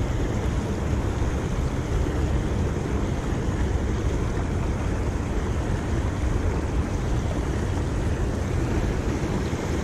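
Steady rushing noise of churning, foaming river water just below the bank, with wind buffeting the microphone.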